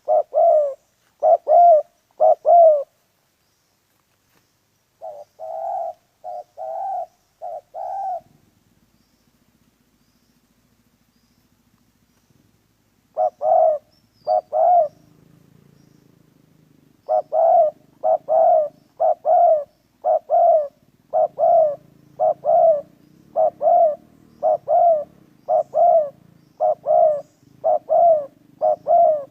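Spotted dove cooing: short repeated coos in groups, a silent gap of several seconds near the middle, then a long run of quick coos. A faint low hum sits under the second half.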